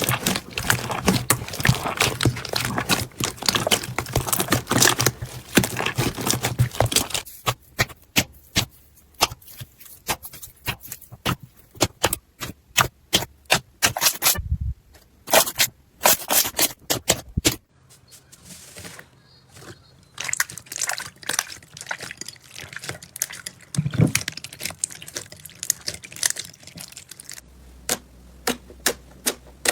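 Slime being handled: squeezed, pressed and poked. About the first seven seconds are a dense run of crackles. After that come sparser sharp clicks and pops, and the texture shifts abruptly twice, at each change of clip.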